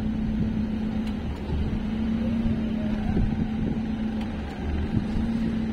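Steady low mechanical hum, broken off briefly twice, over wind rumbling on the microphone.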